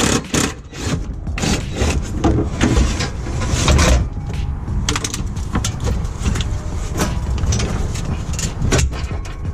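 Irregular knocks and clanks of hand tools and metal parts as the fuel tank's retaining straps are undone and the tank is lowered from under the car.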